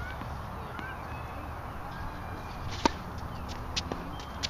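A tennis ball struck hard with a racket about three seconds in, a single sharp pop, followed by fainter knocks of the ball bouncing and being hit back on the far side of the court.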